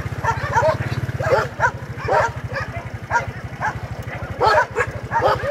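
Many dogs barking and yelping at once, short barks overlapping in quick succession, over a steady low hum.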